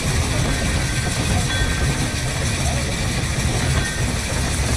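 1915 Orenstein & Koppel steam tram locomotive running light along the track on a warm-up run: a steady low rumble from the wheels and running gear under an even hiss.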